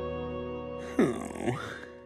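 Orchestral transition music with brass holding its chord, then about a second in a breathy, falling groan from a weary cartoon character.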